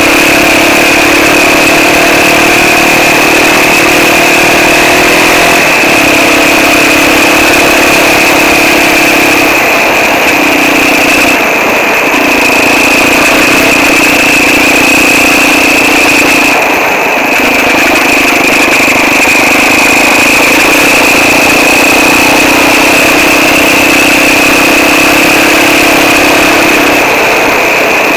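Quad bike (ATV) engine running steadily under way on a dirt track, loud and close, its note breaking off briefly a few times. A steady high whine sits over the engine throughout.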